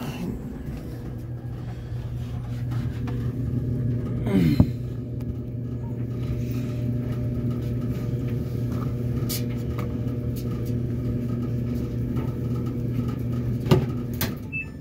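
Clothes dryer running with a steady hum, with a few small clicks and a brief squeak about four and a half seconds in.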